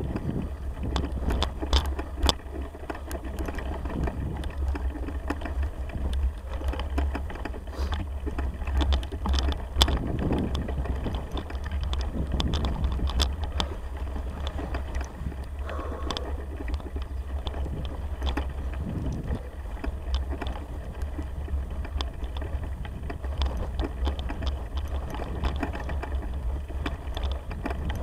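A bicycle ridden over a bumpy grass track, giving off irregular clicks and knocks, over a steady low rumble of wind on the microphone.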